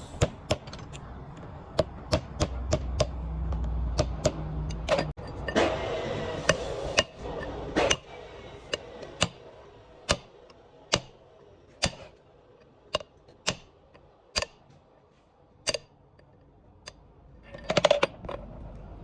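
Hand tools knocking on metal: a series of sharp single taps, about one a second, thinning out toward the end, then a short scraping rattle near the end.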